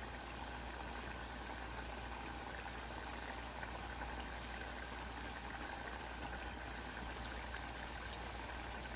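Curry gravy in a saucepan bubbling steadily at a simmer on a gas burner.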